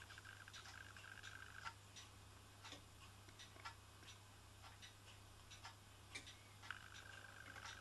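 Faint handling sounds from a small brass oscillating-cylinder steam engine: scattered light clicks and taps of metal fittings under the fingers. A thin high squeak sounds twice, each lasting over a second, at the start and again near the end.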